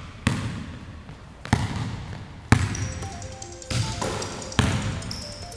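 Basketball bouncing on a hardwood gym floor: five sharp bounces roughly a second apart, each echoing in the hall.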